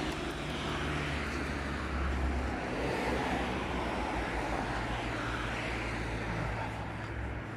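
Road traffic: cars driving past on a town street, a low engine hum under tyre noise that swells as vehicles go by, loudest about two to three seconds in.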